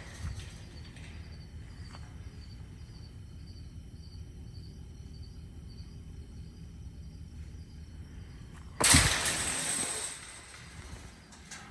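Insects trilling steadily in the background. About nine seconds in, a sudden loud rush of noise breaks in and fades away over a second or so.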